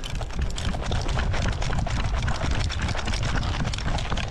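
Quick footsteps on gravel, a dense, irregular crunching, with wind rumbling on the camera's microphone.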